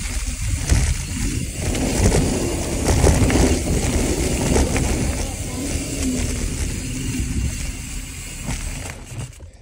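Wind buffeting the microphone and a mountain bike's knobby tyres rolling fast over a dirt trail, with a few sharp knocks from bumps. The noise falls away near the end as the bike slows.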